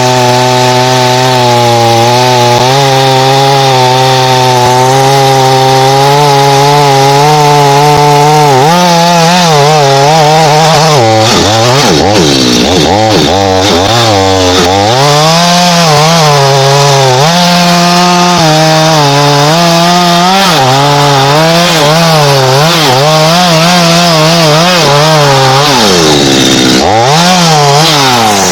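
Two-stroke chainsaw running at high revs while cutting into thambakam hardwood. Its engine note wavers and sags as the chain bogs under load and then recovers, with a deeper dip about halfway through. The note drops away right at the end.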